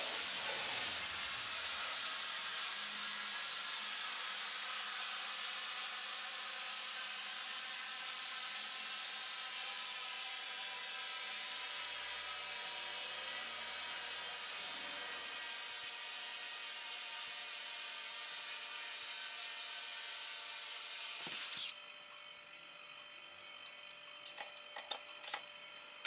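Steady hiss of air escaping under pressure, with a thin high whine over it. About three-quarters of the way through there is a click, and the hiss thins after it.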